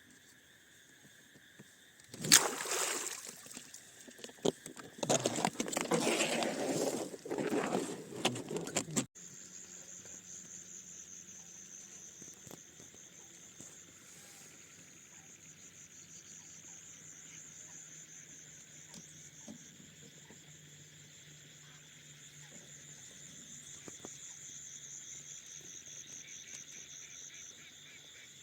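Night insects trilling steadily in a high, even chorus. Several seconds of loud, irregular rustling noise come early, ending abruptly about nine seconds in.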